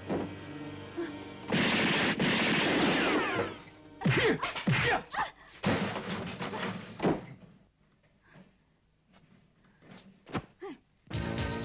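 Martial-arts film fight sound effects: a long crashing noise, then a quick run of sharp hits and blows, with background music returning near the end.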